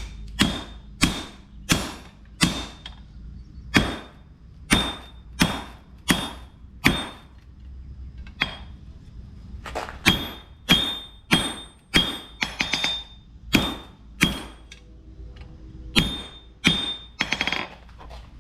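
Hammer blows on hot steel over an anvil as a railroad-spike axe head is hand-forged. The blows come about two a second, each with a short ringing note. They pause for about two seconds near the middle, then carry on, with a few quicker, lighter taps in between.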